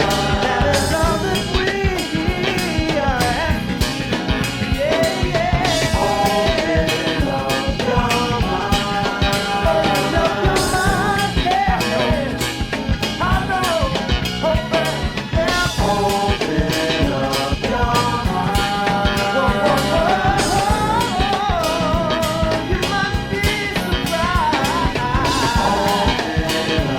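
A rock band playing with a ska feel: a drum kit keeping a steady beat under a wavering lead melody.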